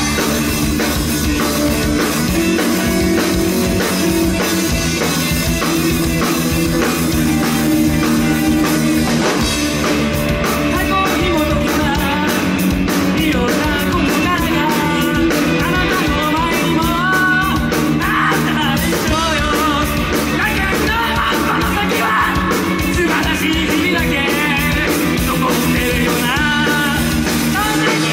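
A live rock band playing loudly: drums keeping a steady driving beat under electric guitars and bass, with a man singing and shouting into a microphone over it from about ten seconds in.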